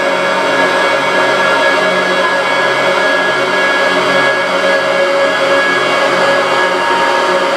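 Loud drone music: a dense, unchanging wash of noise with many sustained tones held through it.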